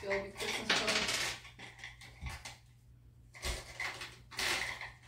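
Dishes and cutlery clinking irregularly, with people talking in the background.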